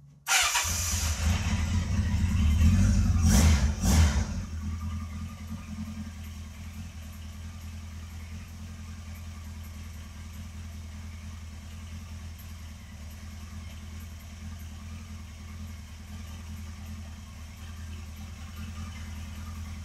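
Kawasaki GPZ1100F's air-cooled inline-four on Keihin CR carburetors, catching just after the start and blipped twice within the first four seconds, then settling to a steady idle.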